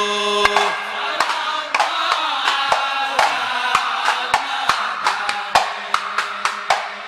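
Ishari sholawat chanting by a group of men: a long held sung note that breaks off about half a second in, then voices chanting together over sharp percussion strikes that settle into a steady beat of about two or three a second toward the end.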